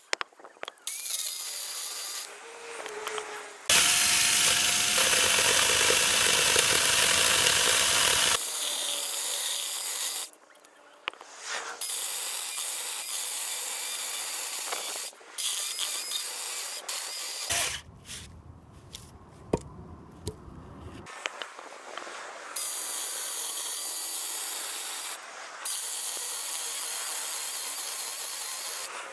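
Cordless electric mini chainsaw ripping lengthwise down into the end of a hinoki log, along the grain, a hard, slow cut for a small battery saw. The motor and chain run in stretches broken by short pauses, loudest from about four to eight seconds in.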